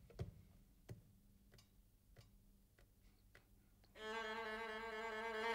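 Faint, evenly spaced clicks, a little under two a second, from a hand tapping at a computer keyboard. About four seconds in, a single bowed violin note of film score music starts and is held.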